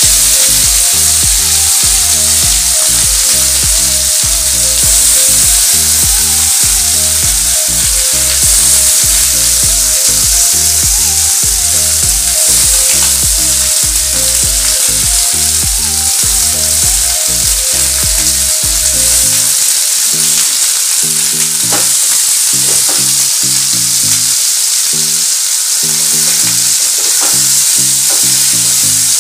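Chopped brinjal sizzling loudly in hot oil in a kadai, beginning sharply as the pieces go into the oil, while a wooden spatula stirs them. Background music plays underneath; its bass drops out about two-thirds of the way through.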